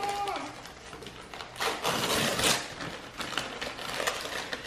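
Tissue paper and a paper gift bag rustling and crinkling as a present is pulled out, loudest for about a second near the middle, with small taps and crackles from handling the box. A child's held sung note trails off right at the start.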